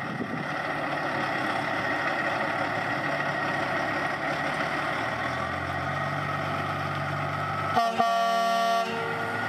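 A vehicle engine running steadily, its low hum growing about halfway through, then a single horn blast about a second long near the end.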